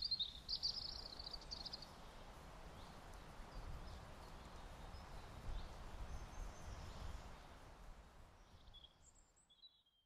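Faint ambience with a low rumble and small birds chirping: a run of twittering calls in the first two seconds and a few more chirps near the end.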